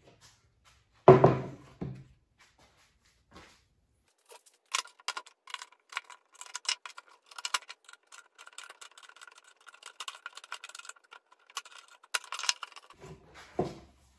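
An aluminium window sash knocks down onto a plywood workbench about a second in. Then, for several seconds, a screwdriver and pliers click and scrape against the aluminium sash frame as its halves are worked apart, the metal ringing as it is scraped. A tool knocks down near the end.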